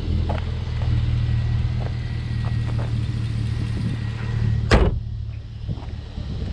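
2010 Chevrolet Camaro SS's 6.2-litre V8 idling steadily, with a few light clicks and then one loud bang about three-quarters of the way through as the hood is slammed shut.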